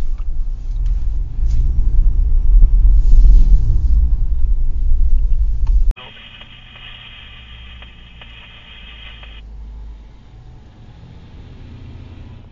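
Dashcam recording of a parked vehicle: a loud, rough low rumble for the first six seconds, which cuts off abruptly. A much quieter low hum follows, with a steady high tone and its overtones held for about three and a half seconds over it.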